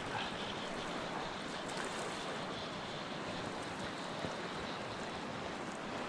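Steady rush of a fast-flowing river running over a stony bed.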